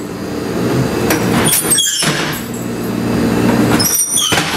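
Reversible wooden walkover seat backs in a replica Birney streetcar being flipped over, each landing with a squeaky clunk, twice about two seconds apart, over a steady low hum.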